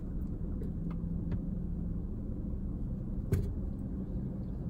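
Steady low vehicle rumble heard inside a car's cabin, with a few faint ticks and one sharp click a little over three seconds in.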